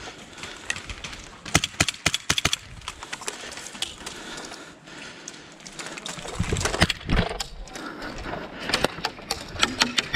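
Sharp clicks and knocks at irregular intervals, with a low rumble about six seconds in, then a quick, even run of clicks about four a second near the end.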